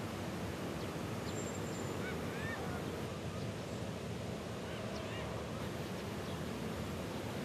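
Steady outdoor background noise with a few faint, short bird calls, about one to two seconds in and again near five seconds.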